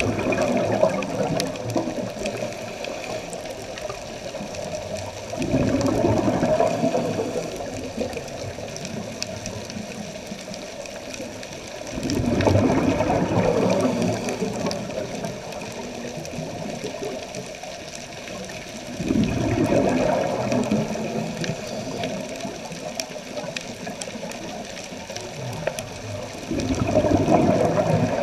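Scuba diver's exhaled breath bubbling out of the regulator underwater: a rough, rumbling gush of bubbles about every six or seven seconds, five times, each lasting about two seconds, over a steady underwater hiss.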